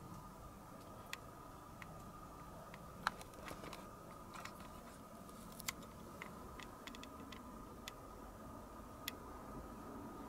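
Quiet room tone with a faint steady high-pitched hum and scattered sharp little clicks and ticks at irregular intervals, the loudest about three seconds in.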